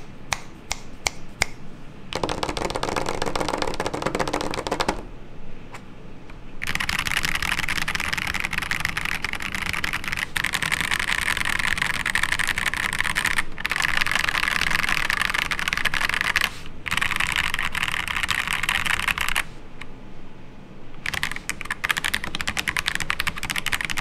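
Akko PC75B Plus mechanical keyboard with Akko CS Jelly Black linear switches and PBT double-shot ASA-profile keycaps, typed on fast in dense runs of keystrokes, with a pause about five seconds in and another near twenty seconds. The case is dampened with silicone foam in the bottom case, a switch pad and PCB foam between PCB and plate, for a softer, fuller sound, heard without post processing.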